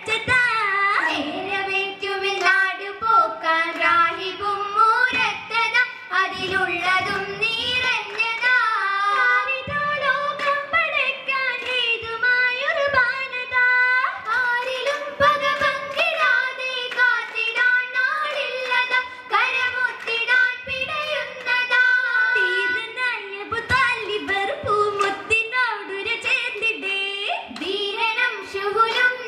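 Girls singing an Oppana song (Mappila pattu) into microphones, young female voices carrying a wavering, ornamented melody.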